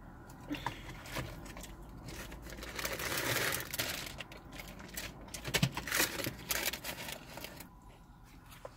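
Paper fast-food bags and wrappers rustling and crinkling as they are handled, loudest about three seconds in, with a few sharp clicks and taps a little past the middle.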